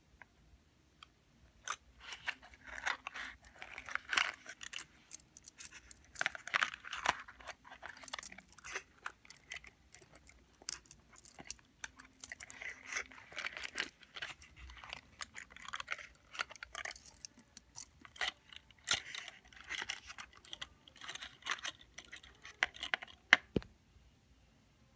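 Metal bangle bracelets handled close up, clicking and jangling against each other, with fingernails tapping on them, in a busy run of small clicks that starts a couple of seconds in.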